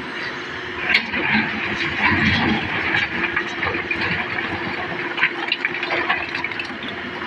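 Komatsu excavator running while a bucketload of broken rock pours and clatters into a dump truck bed, a rushing rattle with sharp knocks of stone that starts about a second in and dies down near the end, over the steady hum of the engine.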